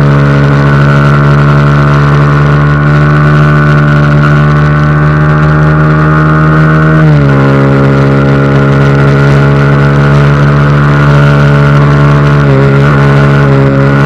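Honda CBR sport motorcycle engine running at high, steady revs, heard from on board the bike. About halfway its pitch drops in one step, as with a gear change, then holds steady again, with a brief dip near the end.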